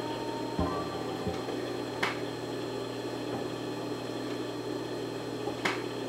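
Steady low hum of an idling industrial sewing machine motor, with a few faint taps as fabric pieces are laid out and handled on the table.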